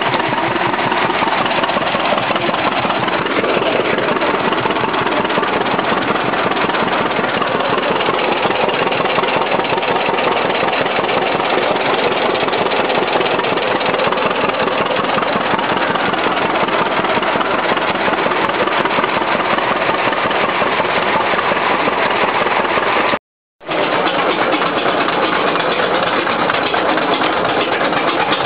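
An old John Deere tractor engine runs steadily under load, driving a long flat belt to belt-powered machinery, with a fast, even beat. The sound drops out for a moment about 23 seconds in.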